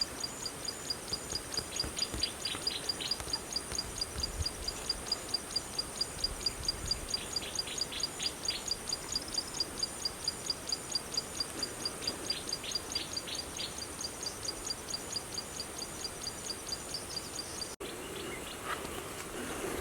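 Outdoor chorus of a high chirp repeated evenly about four times a second, over a steady high hum. It cuts off abruptly near the end.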